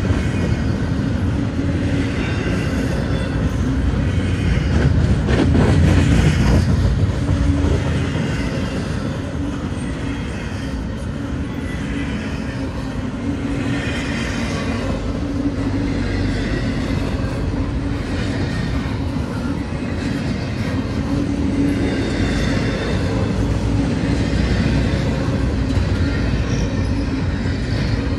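Double-stack intermodal freight cars rolling past close by: a steady rumble of steel wheels on rail, with a higher hiss that comes and goes every few seconds as the cars go by.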